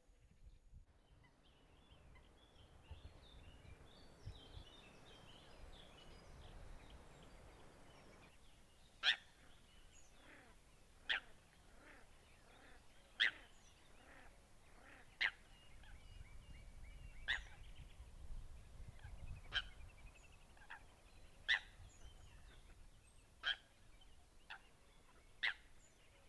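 Eurasian coots calling: a short, sharp call repeated about every two seconds from about nine seconds in, with softer calls between. Before that, only faint high calls.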